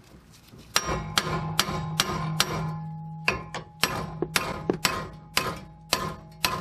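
A hammer strikes a steel wheel hub-and-bearing assembly over and over, about two to three blows a second, starting about a second in, to knock it out of the rear knuckle. Each blow leaves a short metallic ring.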